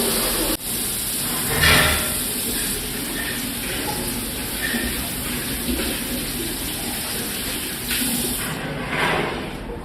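A few short, noisy bursts of a person sneezing and blowing their nose: one about two seconds in and two near the end, over a steady hiss.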